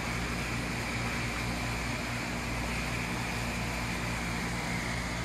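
Steady mechanical hum with an even hiss, the room tone of running aquarium equipment.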